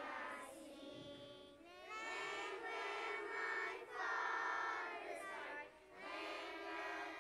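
A group of young children singing together, in sung phrases of a few seconds each with short breaks between them.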